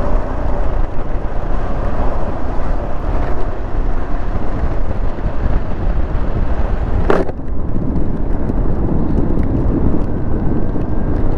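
KTM 390 Adventure single-cylinder motorcycle under way: steady engine and road noise picked up by a helmet-mounted mic. One sharp click about seven seconds in, after which the sound is more muffled.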